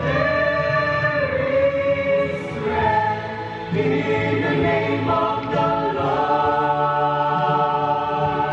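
A choir singing, several voices holding long notes that change every second or so.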